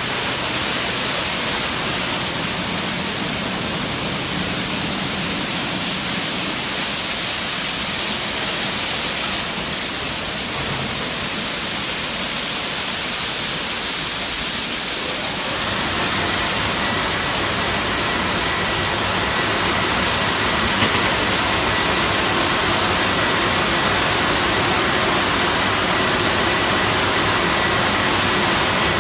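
Shuifu automatic car wash machine running: water jets spraying and hissing over the car while its rotating brushes scrub it. About halfway through the sound thickens with a lower rumble and a steady high whine as the brushes close in over the car.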